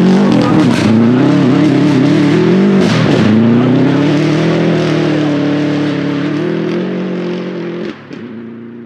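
Rally car engine at full throttle, its note dipping sharply about three seconds in as the driver lifts or shifts, then climbing steadily under acceleration before dropping away and fading out near the end.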